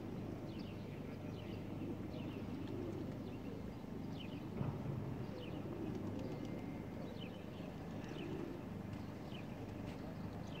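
Pigeons cooing, with small birds giving short, high, falling chirps one or two times a second over a low background murmur; a single brief knock about four and a half seconds in.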